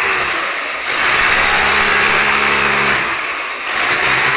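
Electric demolition hammer breaking into a masonry wall, running in bursts: it starts about a second in, runs for about two seconds, stops, then starts again near the end.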